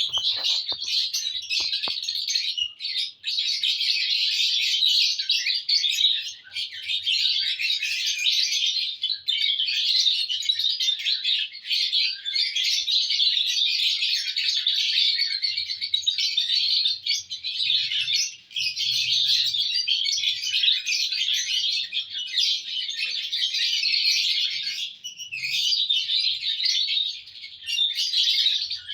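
Lovebirds chattering in a dense, continuous stream of high-pitched chirps, with only brief pauses.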